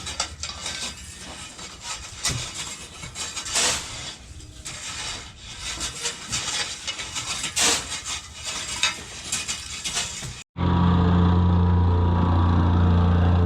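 Irregular scraping and gritty crunching of a shovel working dirt or gravel. About ten seconds in, a sudden cut brings in a small engine running steadily and loud.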